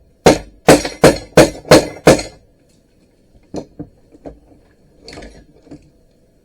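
A hammer smashing open a cordless drill's plastic trigger switch: six hard blows at about three a second, then a few lighter knocks and a short rattle of loose pieces.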